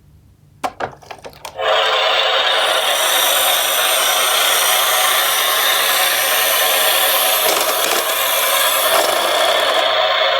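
A few light taps, then a loud steady rolling noise that starts suddenly about a second and a half in: a toy garbage-truck minicar's wheels running down a slope.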